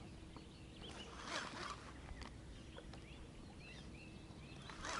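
Faint bird chirps over a low steady outdoor rumble, with one louder brief burst about a second and a half in.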